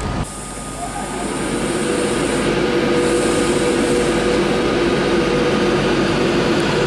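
A Class 390 Pendolino electric train moving at slow speed alongside the platform. Its electric traction equipment gives a steady two-note hum over rolling noise, growing louder over the first couple of seconds and then holding steady.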